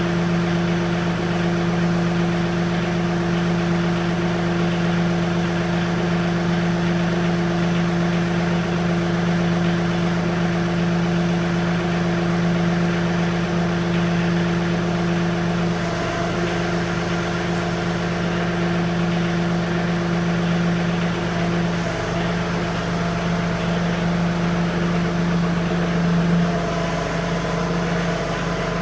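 Engine running steadily at one constant speed, with the sound shifting just at the end.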